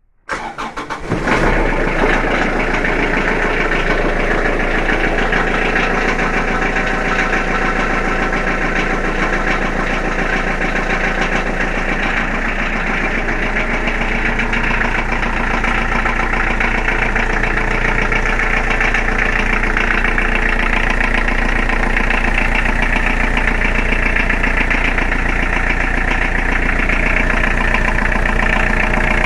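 Kubota GT5 tractor's small diesel engine cold-starting at −5 °C after glow-plug preheat: brief cranking, catching about a second in, then a steady idle.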